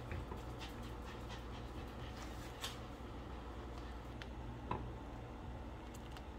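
Pot of macaroni at a rolling boil, bubbling steadily over a low hum, with a few light knocks of a silicone spoon against the stainless steel pot.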